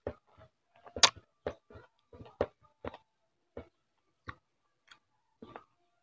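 Close-miked chewing and lip-smacking while eating rice and fish by hand: a run of short, wet mouth smacks at an uneven pace, about two a second, the loudest about a second in.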